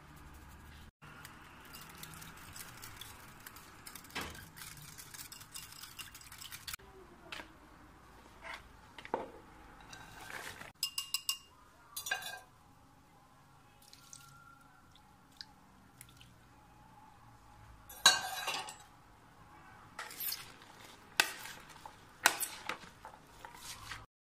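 Hand whisk beating a salad dressing in a small bowl, followed by scattered clinks of utensils against dishes.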